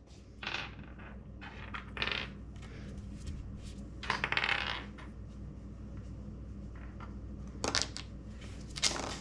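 Small plastic Lego pieces clattering and rattling against each other and a hard surface in several short bursts, over a faint steady low hum.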